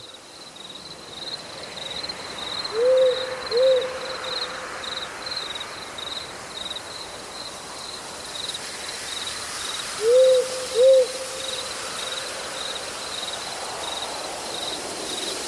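An owl hooting, two short hoots about three seconds in and two more about ten seconds in, over steady cricket chirping.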